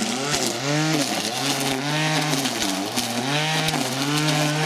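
Petrol grass trimmer's small two-stroke engine running, its pitch rising and falling as the throttle is worked on and off.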